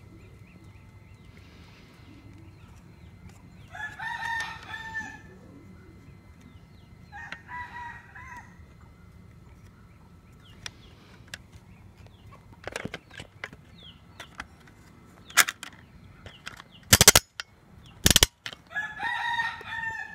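A rooster crowing three times, each crow about a second and a half long. In between come several sharp, loud knocks, the loudest just before the last crow.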